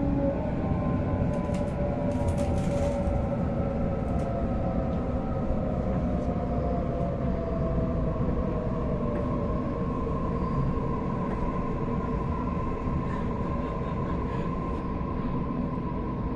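Cabin noise of a Sydney Trains Waratah electric train running, with a steady rumble and the whine of its traction motors gliding down in pitch as it slows toward a station. A few light clicks come about two seconds in.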